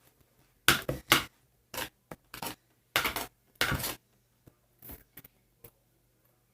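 Homemade slime being mixed in a bowl: a string of short, irregular scraping sounds, most of them in the first four seconds and fainter after.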